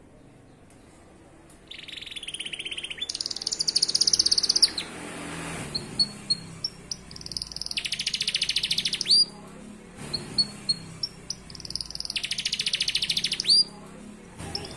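Domestic canary singing in long rapid trills, each held a second or two and switching between a lower and a higher pitch. Short chirps come between the trills, and some trills end in a sharp rising note. The song starts after a short pause.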